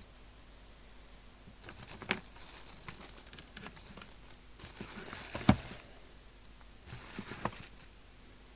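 Handling noise on a workbench: three short bursts of clicks and rustling, the loudest a sharp click about five and a half seconds in.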